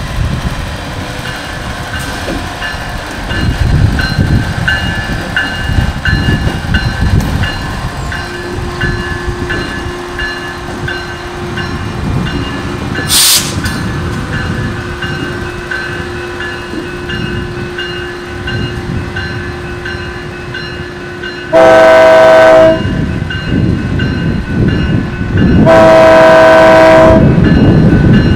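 Ultra-low-emissions diesel genset switcher locomotive rolling slowly past, its engines running and wheels rumbling on the rail. In the last third it sounds its multi-chime horn twice, each blast a little over a second long, much louder than the running.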